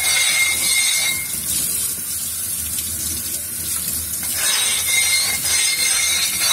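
Stainless steel stone dresser scraped along a wet diamond lapping plate, a gritty wet rubbing that eases off in the middle and picks up again near the end. It is the first-time dressing of a new plate, knocking the loose, excess diamond particles off its surface.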